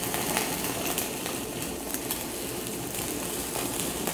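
Pork skewers sizzling in a wire grill basket over the open flame of a portable gas burner: a steady hiss with scattered crackles as juice from the meat drips into the flame.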